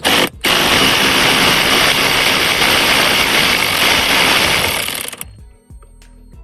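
A handheld power driver runs in a short trigger pulse, then again steadily for about five seconds, backing out a dash panel screw, before winding down.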